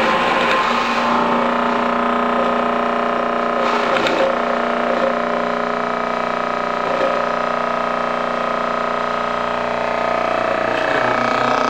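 MH-2000-8S stainless steel stone grinder running steadily, its electric motor humming as the grindstones mill fruit paste, with brief swells about four and seven seconds in.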